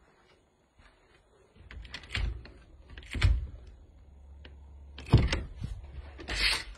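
An interior door and its handle: a few clicks and knocks, then a loud clunk about five seconds in as the door shuts, the sound that made him think he was locked in.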